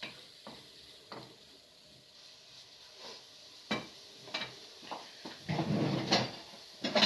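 Kitchenware being handled at the counter: scattered light knocks and clatter, with a longer scraping rumble about five and a half seconds in.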